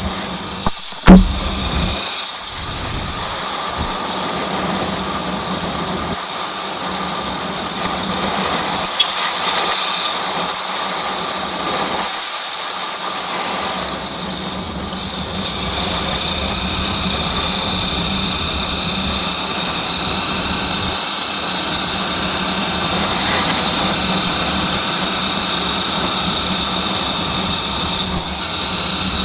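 Motorcycle engine running steadily, with a sharp knock about a second in.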